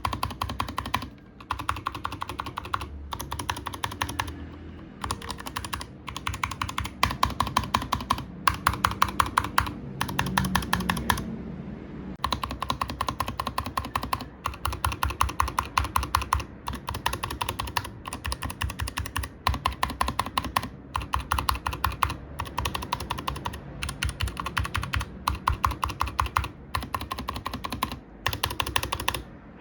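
Fast typing on a mechanical computer keyboard: runs of rapid keystroke clicks and clacks in spurts, with brief pauses between them.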